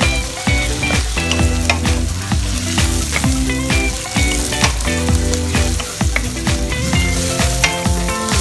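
Diced chicken breast sizzling in butter in a frying pan as it is stirred with a wooden spatula, under background music with a steady beat.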